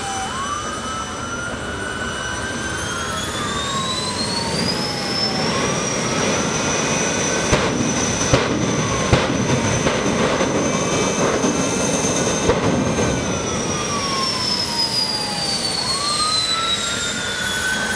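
Jet turbine engine of the Flash Fire jet truck running. Its high whine climbs in pitch a few seconds in, holds, and falls again late on, with a lower tone sweeping up and down every few seconds and a few sharp pops in the middle.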